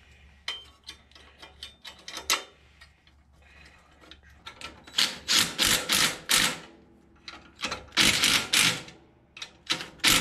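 Cordless impact driver hammering muffler bolts into a small engine's exhaust port. It runs in two main bursts, about five and eight seconds in, each a second or so long, with a shorter burst near the end. A few light clicks of bolts and parts being handled come before them.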